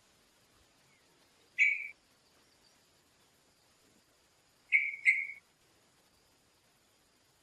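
Yellow-vented bulbul calling: three short, sharp chirps, one about a second and a half in and then two in quick succession near five seconds.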